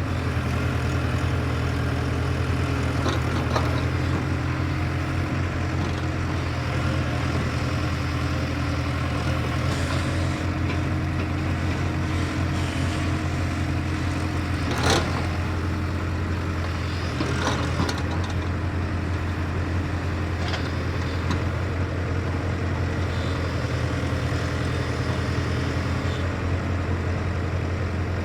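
JCB excavator's diesel engine running steadily with a deep, even drone. A sharp metallic clank about halfway through, with a few fainter knocks around it, comes from the machine working.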